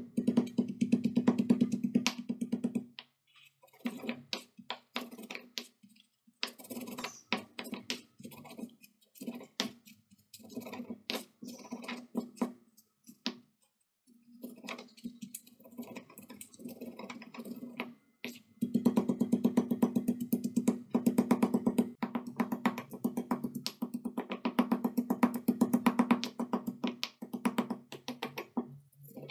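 Background music led by a plucked guitar, with a steady rhythm, dropping out briefly twice.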